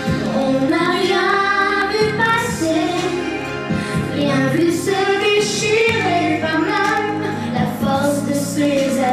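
A young girl singing a melodic line over backing music, some notes held and bending in pitch.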